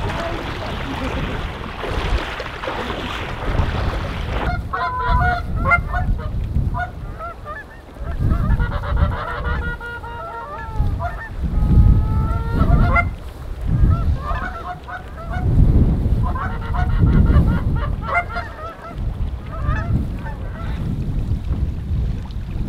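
A flock of geese honking, many short overlapping calls starting about four and a half seconds in and going on in spells, with gusts of wind on the microphone. Before the calls there is a steady rushing noise.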